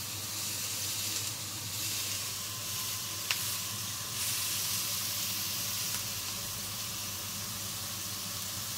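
Stuffed minced-meat patty (bifteki) sizzling steadily in a ridged grill pan as it finishes cooking, with a single short click about three seconds in.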